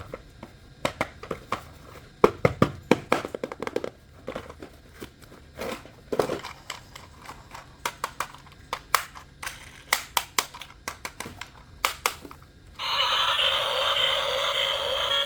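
Handling of plastic toys and packaging: scattered clicks, knocks and crinkles. About 13 s in, a louder steady tune with held tones starts up.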